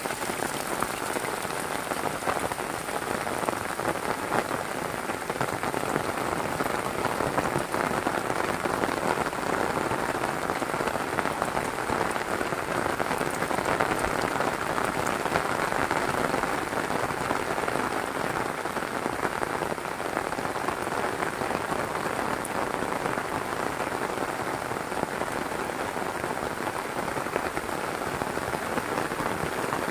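Heavy rain falling steadily, a dense hiss of countless drop impacts that holds at the same level throughout.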